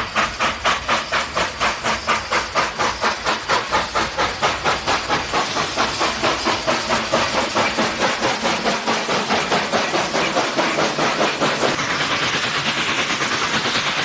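Steam locomotive exhaust chuffing in a steady rhythm, about three chuffs a second, quickening and blurring together toward the end as the engine gathers speed.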